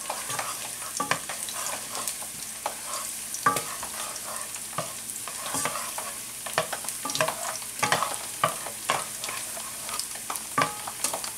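Chopped garlic frying in olive oil with a steady sizzle, while a wooden spoon stirs it round the pan, scraping and knocking lightly against the pan at irregular moments.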